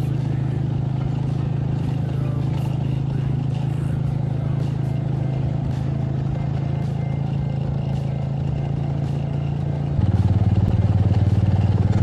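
Motorcycle engine running steadily while riding. About ten seconds in, the engine note drops lower and gets louder.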